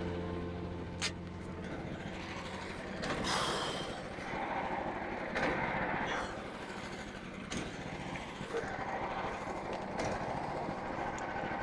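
Small gas engine of a portable band sawmill running steadily, with a few sharp knocks and several short, swelling rushes of noise over it.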